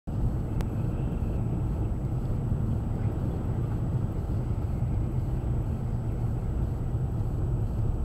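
Steady low rumble of a car driving on a snowy road, heard from inside the cabin: engine, tyre and wind noise blended together, with a faint steady high-pitched whine throughout.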